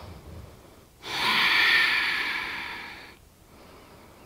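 A woman's deep, audible breath out, about two seconds long, starting about a second in and fading away.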